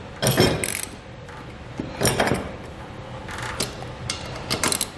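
Socket ratchet and socket clinking on a bolt of a steel ladder-rack clamp bracket, with short runs of ratchet clicking, in several irregular bursts; the loudest is near the start.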